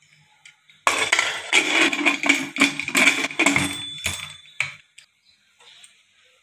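Aluminium pressure cooker lid being fitted and locked onto the pot: about three seconds of metal scraping and clattering with a ringing note, then a single knock.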